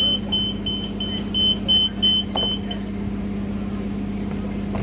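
A bus's electronic warning beeper sounding about three times a second over the steady hum of the bus, stopping a little under three seconds in.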